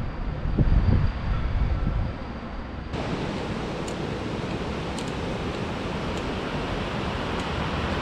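Low, gusty wind rumble on the microphone for the first few seconds, then, after a sudden change about three seconds in, the steady rush of a mountain stream running beside the road.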